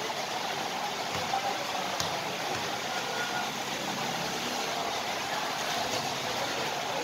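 Steady noisy ambience of a covered basketball court during play, with a couple of faint knocks about one and two seconds in.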